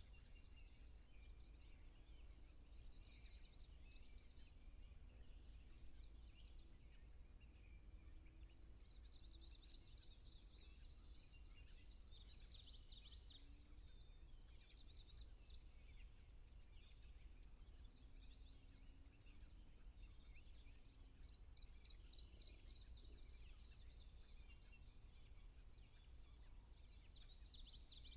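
Faint songbird trills from more than one bird, short high phrases repeating every second or two, over a low steady hum.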